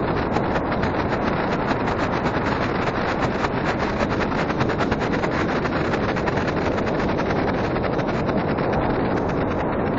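Ground fountain firework spraying sparks inches from the phone's microphone: a loud, steady hiss packed with rapid crackles.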